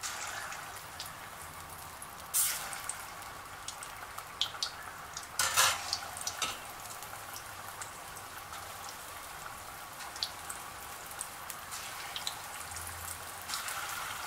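Lauki and besan kofta balls deep-frying in hot oil in an aluminium kadhai: a steady sizzle with scattered crackles. There are two louder bursts of sizzling about two and a half and five and a half seconds in, as more balls are slipped into the oil.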